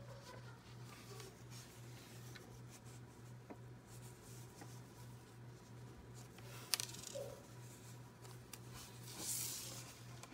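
Faint small handling noises from fingers in nitrile gloves working tiny toy-car parts: scattered light clicks and rustles, with one sharp click about two-thirds of the way through and a brief rustle near the end, over a steady low hum.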